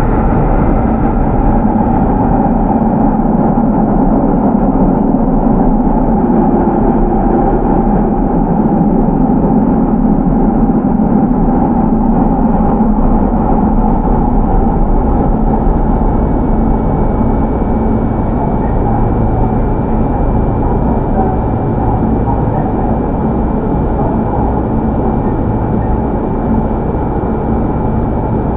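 Onboard running noise of a Sotetsu 8000 series electric train with Hitachi GTO-VVVF control, running steadily with wheel and rail rumble. A faint steady high tone joins about halfway through.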